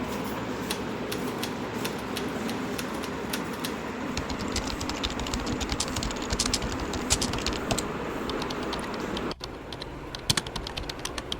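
Typewriter keys being struck in an irregular run of sharp clicks, over a steady background hum that cuts out about nine seconds in.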